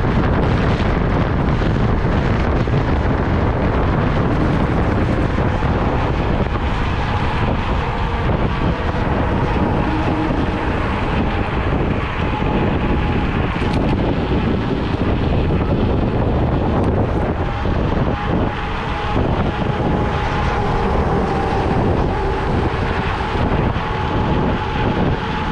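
Wind buffeting the microphone of a Kaabo Mantis electric scooter riding at speed: a loud, steady rushing. A faint steady whine comes and goes over it from about a quarter of the way in.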